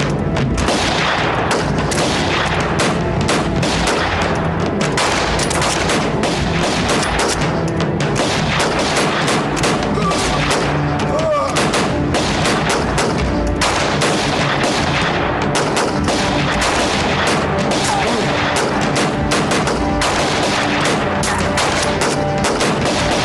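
Battle gunfire: many rifles firing at once, the shots following one another without a break.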